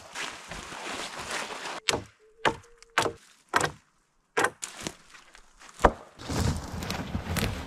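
Dry branches of small cut trees rustling and scraping as they are hauled through brush over snow, with about six sharp snaps spread through the middle and a longer, louder stretch of rustling near the end.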